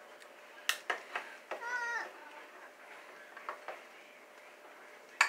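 A domestic cat meows once, a short wavering call about a second and a half in. Several sharp clicks or knocks come before and after it, the loudest just before the end.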